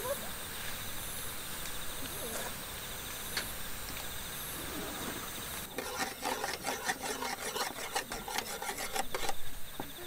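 Rapid scraping and clinking of a utensil worked around inside a small stainless steel bowl, starting about six seconds in and lasting about three and a half seconds. Insects trill steadily underneath.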